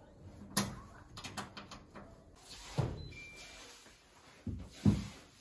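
A few sharp knocks and thuds, with a quick run of light clicks between them, the loudest knock near the end.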